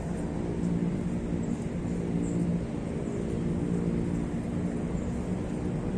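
ATV engine running steadily, a low even hum.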